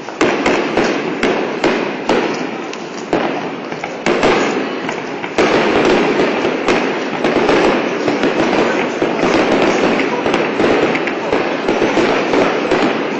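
Aerial fireworks bursting: a run of separate sharp bangs that about five seconds in thickens into a dense, continuous barrage of bangs and crackle.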